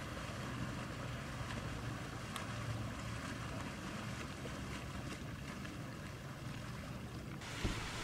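Open-water ambience of wind and small waves, under the low steady hum of a boat motor. Near the end the sound changes suddenly, with a single knock.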